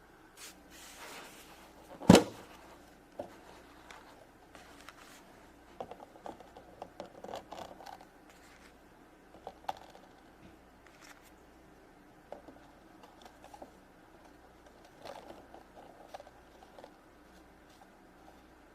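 Small plastic Shopkins toy figures being handled and put into a plastic toy vending machine. Scattered light clicks and rattles, with one sharp knock about two seconds in.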